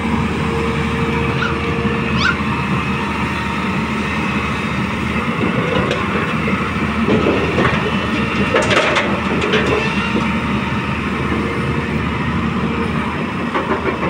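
Hyundai crawler excavator's diesel engine running steadily under hydraulic load as it swings and dumps a bucket of broken old concrete. About halfway through, a clatter of concrete chunks and rubble landing in the dump truck bed.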